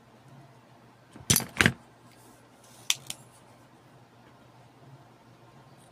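Spring-loaded desoldering pump snapping as it sucks molten solder off a resistor lead on a circuit board: two loud sharp clicks about a second and a half in, then two fainter clicks near the three-second mark.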